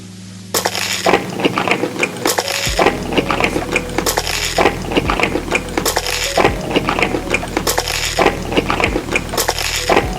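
Cutlery clinking and scraping against a dish in quick, dense clusters, starting about half a second in, over steady background music.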